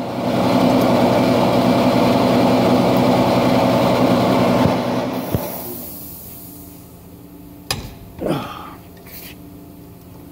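A loud, steady mechanical running sound fades out about halfway through. Then come a few sharp metal clanks and clinks of a breaker bar and socket on a locking lug nut.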